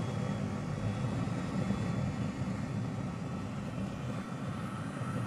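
Truck diesel engine idling, a steady low rumble.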